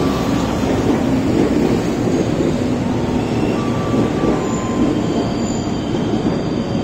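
Electric commuter train running through an S-bend: a steady rumble of wheels on rail, with thin high squeals from the wheels on the curve coming and going.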